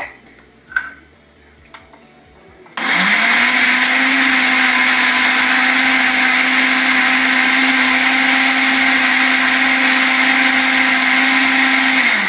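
Countertop blender blending raspberries, blueberries and chia seeds into jam. It starts suddenly about three seconds in, comes up to speed within a moment and runs at a steady pitch, then begins winding down at the very end. A couple of light knocks come before it starts.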